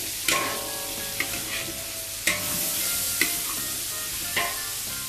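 Metal spatula stir-frying diced pork and vegetables in a large metal wok over a steady sizzle of hot oil, with several sharp clanks of the spatula striking the wok.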